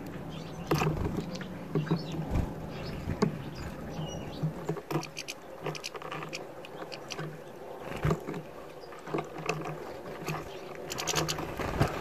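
European goldfinch pecking and cracking black sunflower seeds in a metal feeder bowl: irregular sharp clicks and taps, with a few short high-pitched chirps.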